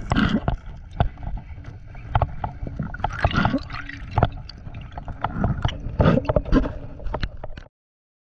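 Muffled underwater sound picked up by a diver's camera: water moving and gurgling, with many sharp knocks and clicks and a few louder swells of noise. It cuts off suddenly near the end.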